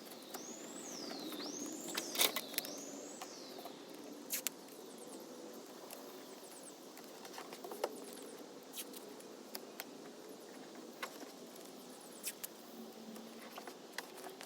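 Tape being handled and pressed into place, with faint crinkles and small scattered clicks. A high squeal rises and falls three times in the first few seconds.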